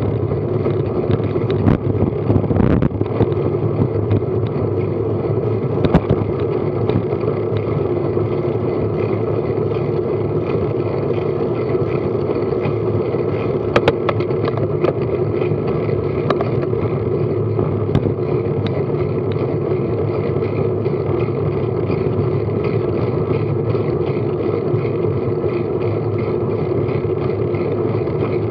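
Steady drone of a moving bicycle heard from a bike-mounted action camera: tyres rolling on tarmac and wind over the microphone. There are a few short knocks from bumps in the road.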